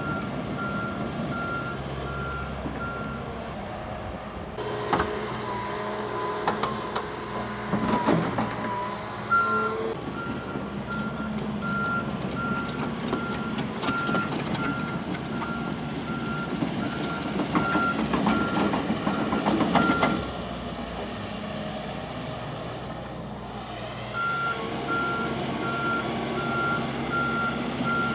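A large excavator's motion alarm sounding a steady series of short high beeps over its diesel engine, the beeping breaking off twice and resuming as the machine stops and moves again. Bursts of metallic clanking and rattling come in between.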